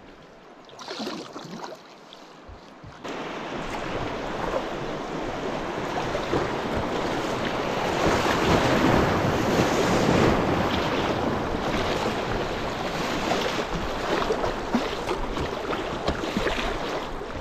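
Kayak running a river rapid: rushing whitewater and waves splashing against the bow, coming in suddenly about three seconds in after a few quiet paddle strokes on calm water, loudest in the middle and easing off near the end.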